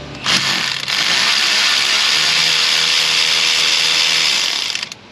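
Cordless power driver running steadily for about four and a half seconds, starting and stopping sharply, as it spins out the Torx T30 fastener holding a manifold absolute pressure sensor.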